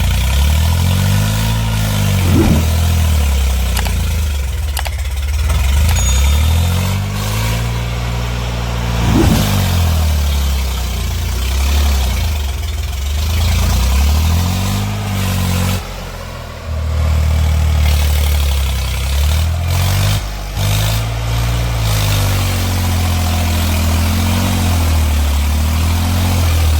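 Heavy diesel engine revving up and down over and over, its pitch rising and falling in long swells every few seconds, with two sharp knocks along the way.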